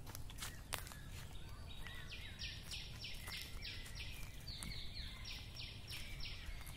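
A repeated rasping animal call, about three short noisy pulses a second, starting about two seconds in and running for some four seconds with a brief break, over a low steady outdoor background. A few faint clicks come in the first second.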